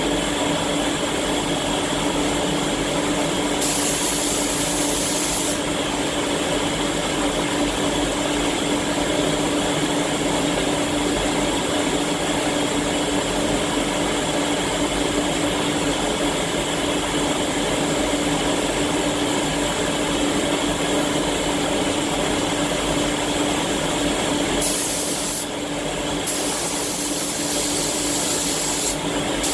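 Iwata Hakone spray gun hissing as it sprays clear coat, over a steady rush of air with a constant hum. The high hiss grows stronger for about two seconds a few seconds in, and again for several seconds near the end.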